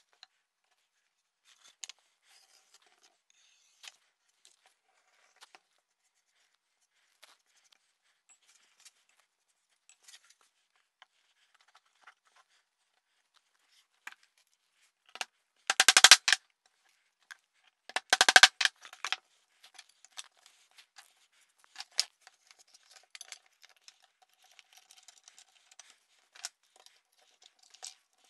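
Workbench handling sounds: scattered light knocks and clicks of plywood pieces and tools being set down and moved, with two loud bursts of rapid clicking, each about a second long, a little past halfway.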